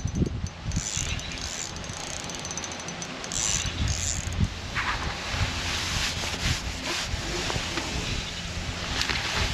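Fixed-spool reel on a feeder rod being wound in, its gears and rotor ticking in short spurts during the first half. After that, wind on the microphone takes over.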